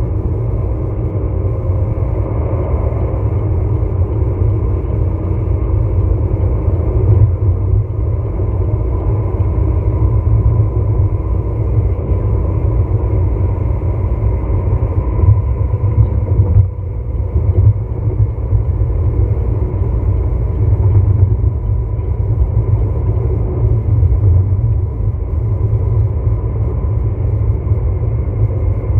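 Steady low rumble of tyre and engine noise inside a vehicle cruising at highway speed on concrete pavement, dipping briefly about halfway through.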